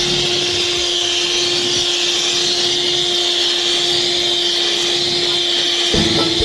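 Electric hand mixer running steadily, its twin beaters whisking egg-and-sugar cake batter with an even motor whine. Music comes in about six seconds in.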